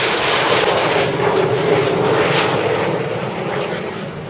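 Red Arrows BAe Hawk T1 jets flying past in formation, their turbofan engines making loud, steady jet noise that begins to fade about three seconds in as the formation draws away.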